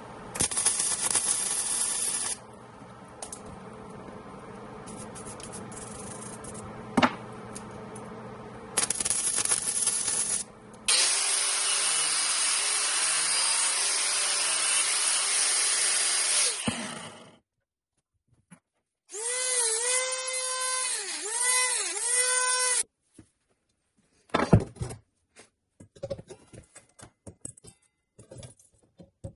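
MIG welder laying short welds, a crackling hiss in two spells. Then a handheld angle grinder grinds steel for about six seconds, followed by a high whine that dips in pitch several times and a few sharp knocks near the end.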